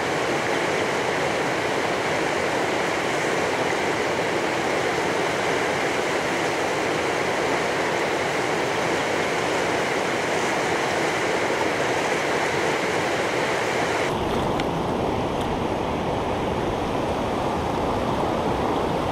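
River rapids rushing over rocks in a steady wash of whitewater. About fourteen seconds in, the rush turns deeper.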